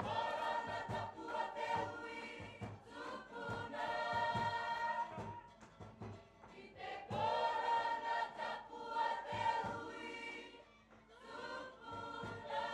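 Group of performers singing a Cook Islands song together in three long phrases with short breaks between them, over a steady low beat.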